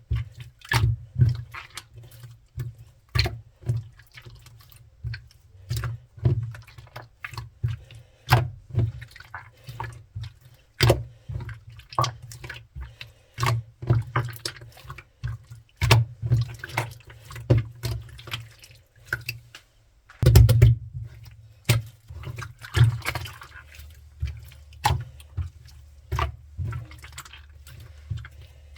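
Clear slime being squeezed and pressed by hand, giving irregular wet clicks and pops, each with a dull low thump beneath it, and a denser run of crackling about twenty seconds in.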